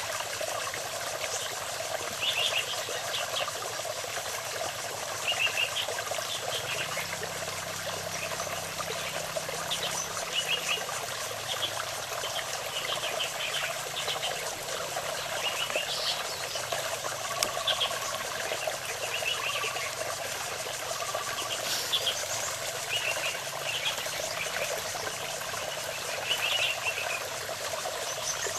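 Steady high buzz of insects, with short chirping calls recurring every second or two.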